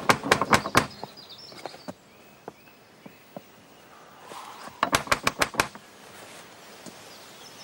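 Two rounds of rapid knocking on a door, about six sharp raps each, the second round about five seconds in. Faint bird chirps sound between them.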